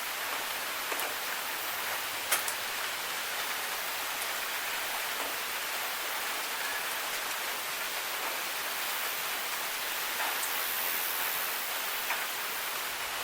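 Steady rain falling, a dense even hiss with scattered sharp drip ticks, the clearest a little over two seconds in.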